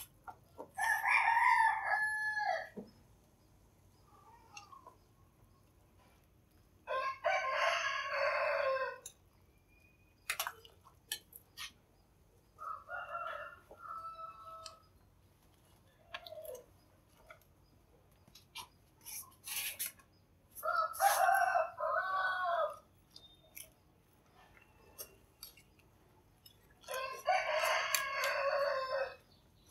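A rooster crowing five times, each crow about two seconds long, with a few light clinks of a metal ladle against a steel pot in between.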